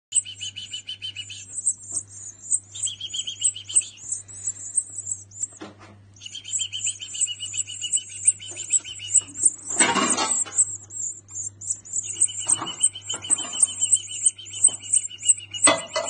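European goldfinch nestlings begging while being hand-fed: rapid, repeated high chirps with a brief pause around six seconds in. A brief louder rustle comes about ten seconds in, over a steady low hum.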